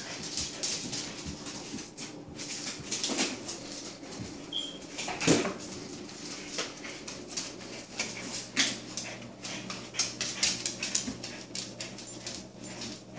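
A Saint Bernard puppy and a small Shih Tzu playing rough on a vinyl tile floor: irregular scuffling and claw clicks, with brief dog vocal sounds. There is one louder knock about five seconds in.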